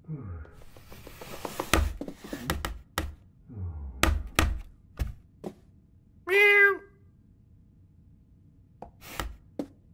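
Cartoon sound effects of a cat shoving its food bowl across the floor: a run of knocks and clatters with two low falling rattles. A single short meow comes about six and a half seconds in, and a few light taps follow near the end.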